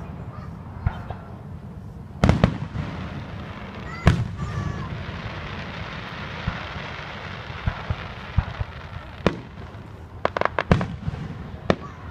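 Aerial fireworks shells bursting: a sharp bang about two seconds in and a louder one at four seconds, then a quick cluster of pops and crackles near the end.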